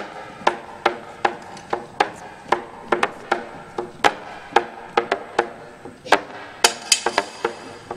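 Brass players tapping out a rhythm on their instruments: sharp, short, pitched pops about two to three a second, growing busier near the end.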